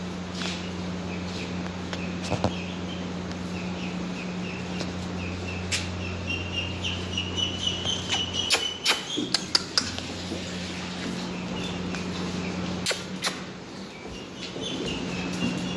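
Small birds chirping in a quick run of short high notes, over a steady low hum, with a few sharp clicks.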